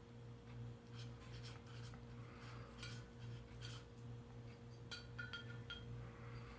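Faint small clicks and smacks of a cat chewing and licking wet food, scattered irregularly, with a tight cluster a little before the end, over a steady low hum.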